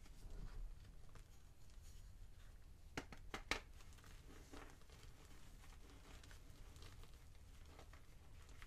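Gym chalk crushed between gloved hands in a tub of chalk powder: soft powdery crunching and squishing, with a cluster of sharper crackles about three seconds in as a chalk chunk breaks.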